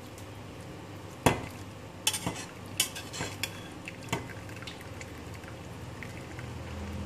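A metal spoon scraping and clinking against a stainless steel saucepan of cooked minced pork, with several sharp clinks between about one and four seconds in, the first the loudest. Over them, the cooking liquid trickles steadily from the tilted pan into a bowl.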